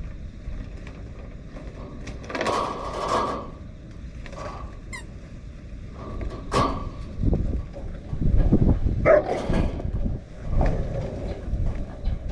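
Typhoon wind buffeting the microphone in heavy gusts, strongest in the second half, with a few sharp knocks and rattles.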